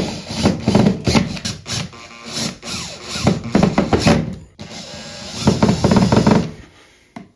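Cordless drill driving a toggle bolt's machine screw through a metal bath hook into the drywall, run in several short bursts that stop shortly before the end.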